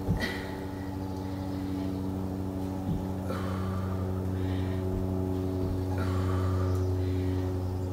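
A steady low hum, with a few short breathy exhalations and three or four soft knocks spaced a few seconds apart, during a set of one-arm dumbbell snatches.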